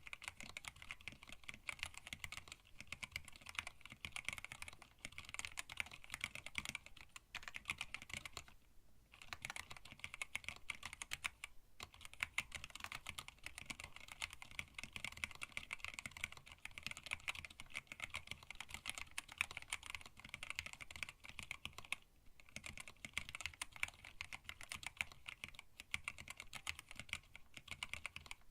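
Fast continuous typing on a custom hand-wired split mechanical keyboard with Tealio linear switches and PBT keycaps in a stacked acrylic case: rapid light key clacks with a few brief pauses.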